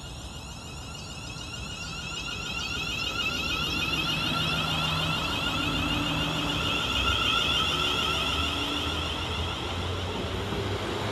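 Class 350 Desiro electric multiple unit pulling away past the lineside, its traction motors giving a whine of several steady high tones over a low running rumble. It grows louder over the first few seconds as the train comes by, then holds.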